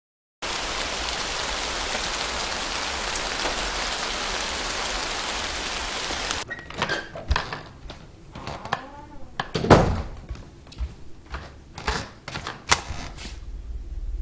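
A steady hiss that cuts off suddenly about six seconds in, followed by scattered knocks and clicks with one louder thump.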